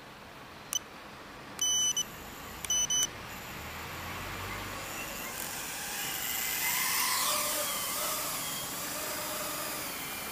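One electronic beep, then two quick beeps a second later. Then the Arfun 95 micro quadcopter's four HGLRC Flame 1104 7500KV motors with Gemfan 2035 props spin up on a 2S battery, and it lifts off. It gives a high whine that builds from about three seconds in and wavers in pitch as it flies.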